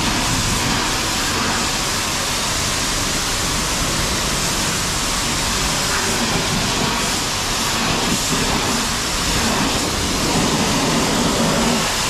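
Pressure-washer wand spraying water against a truck: a loud, steady rush of spray.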